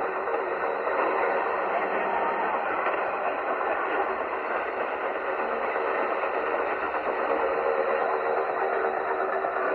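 Shortwave radio receiver tuned to a weak, distant AM signal on 6160 kHz: a steady rush of static and hiss through the narrow audio band of the set's speaker, with a few faint steady whistles and no programme clearly coming through.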